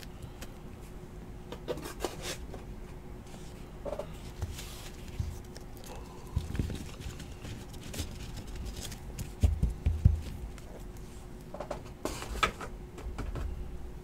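Trading cards being handled and sorted by hand: scattered light clicks and taps as card stacks are squared up, slid and flicked, with a few soft thumps as stacks are set down on the mat. A faint steady hum runs underneath.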